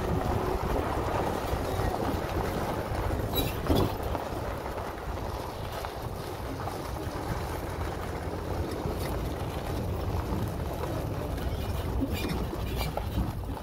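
Wind buffeting the microphone over a steady low vehicle rumble, with a single sharp knock a little under four seconds in.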